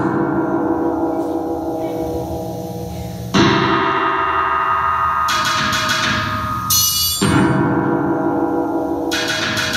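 Music of struck, bell-like metal tones. Each strike rings on for a second or more, and new strikes come about three and a half, five, seven and nine seconds in.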